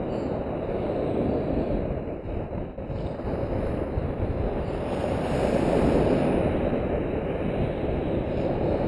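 Surf breaking and washing up the beach right at the microphone, a steady rushing that dips briefly about two to three seconds in and swells again around six seconds.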